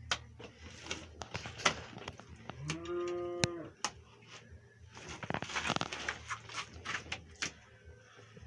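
A cow moos once, about three seconds in: a single call of about a second that rises in pitch at its start. Scattered sharp clicks and a brief scraping sound come a little later.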